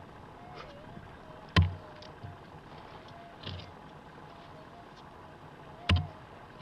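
A metal digging tool striking hard, gravelly soil twice, about four seconds apart, each hit sharp with a short metallic ring, with softer scrapes of soil in between. Under it a faint wavering tone runs steadily, the threshold hum of a metal detector.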